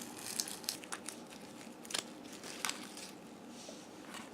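Small batteries being pried out by hand: a few faint, scattered clicks and light rustling of handling.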